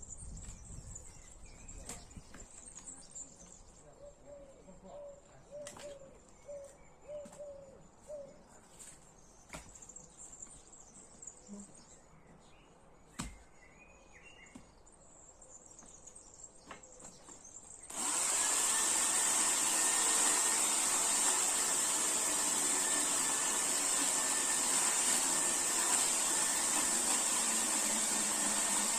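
Birds chirping with a few sharp knocks of wood, then about two-thirds of the way in a chainsaw starts up abruptly and runs steadily and loudly.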